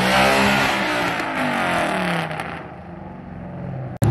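Ford Mustang GT's 5.0 V8 accelerating away, its pitch falling as it fades over about three seconds, then cutting off abruptly near the end.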